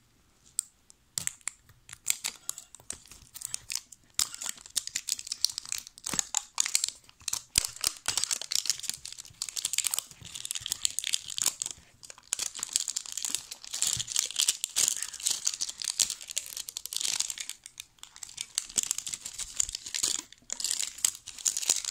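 Clear plastic shrink wrap being torn and peeled off a Pokéball tin and crumpled: a dense, irregular crinkling crackle, easing briefly about halfway through and again near two thirds of the way.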